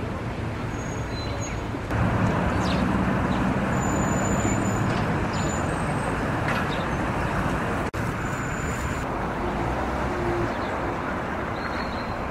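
Steady background road traffic noise, a continuous even rumble and hiss with no distinct vehicle passes, stepping up in level about two seconds in and dipping briefly near eight seconds where shots are joined.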